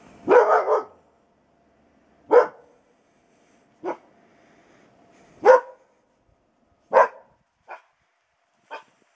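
Saluki barking at a passer-by: a quick run of about three barks, then single barks spaced about a second and a half apart, the last two fainter.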